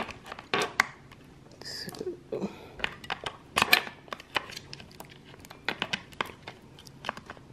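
Plastic packaging crinkling and small plastic parts clicking and tapping as a plug-in air freshener and its refill are unpacked and handled, in irregular bursts.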